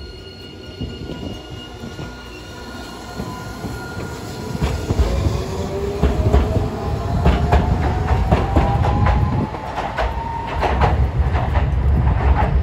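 Hiroshima Electric Railway 3900-series articulated tram passing close by on street track, with a low rumble and a motor whine that climbs steadily in pitch as it picks up speed. Its wheels click sharply over the rail joints many times in the second half.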